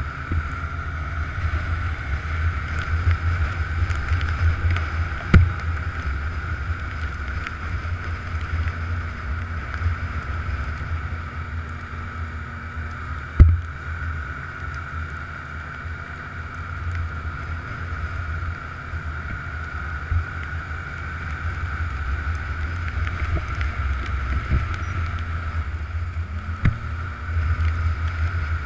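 Snowmobile running steadily at trail speed, heard from on board: a continuous low engine drone with a steady higher whine over it. A few sharp knocks break through, the loudest about halfway through.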